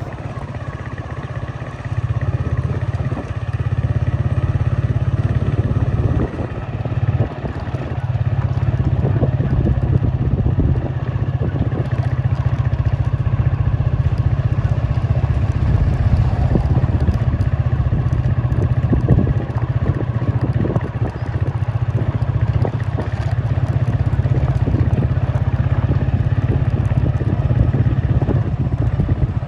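Steady low rumble of a moving vehicle, continuous and fairly loud, with uneven crackle over it.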